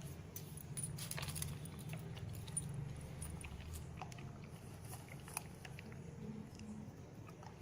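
Labrador eating its food, chewing and biting with scattered sharp clicks and a light jangle.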